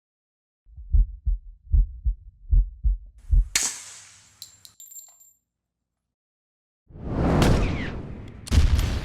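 Heartbeat-like sound effect: three double low thumps, ending in a sharp hit with a bright crash and a high ringing tail. After a dead-silent gap, loud rushing booms come in near the end.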